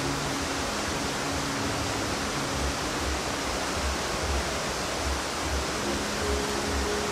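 Steady rushing of a nearby river or stream, an even noise that does not change. Under it runs a faint, evenly spaced low beat, with faint held tones coming in near the end.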